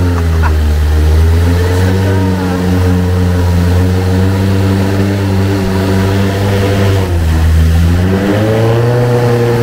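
Long-tail boat's exposed engine running at speed, a loud steady drone that drops in pitch about seven seconds in and picks back up near the end.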